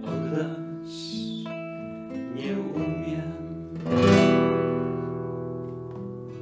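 Nylon-string classical guitar played fingerstyle: picked notes over a moving bass line, then a loud full chord about four seconds in that rings and slowly dies away.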